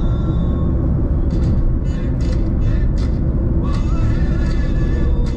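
Steady low road and engine rumble inside a car cabin at motorway speed, with music playing over it.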